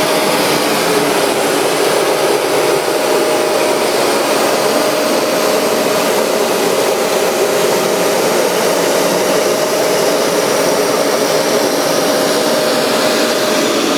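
Hoover MaxExtract 60 carpet cleaner running, a steady whine over a loud, even rushing noise.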